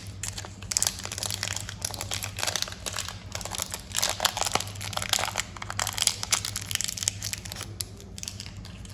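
Candy and chocolate wrappers crinkling and tearing as they are opened, in irregular crackly bursts, over a steady low hum.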